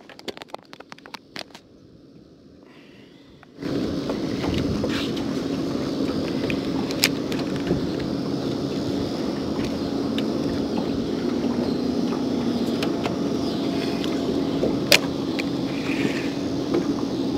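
A few seconds of low background with a run of faint clicks, then a steady hum with wind and water noise, typical of a bow-mounted Minn Kota Terrova trolling motor running to hold the boat in place; a couple of single clicks stand out later.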